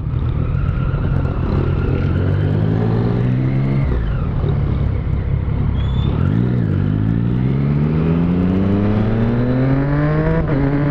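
Motorcycle engine accelerating from the rider's seat: the revs climb, fall away about four seconds in and again around six and a half seconds, then climb steadily until a shift near the end.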